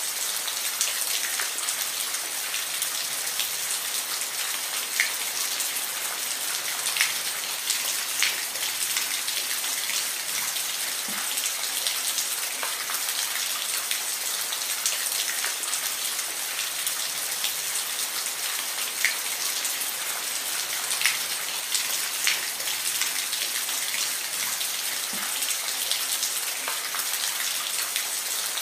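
Steady rain falling, an even hiss with individual drops ticking sharply against a surface every second or so.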